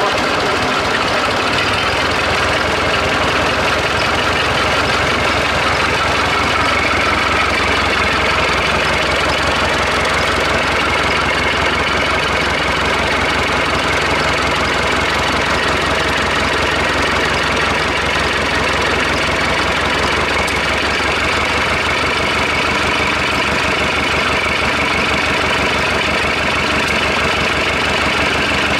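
Perkins four-cylinder diesel engine of a Chamberlain R1250 tractor crane running at a steady idle, firing on all four cylinders.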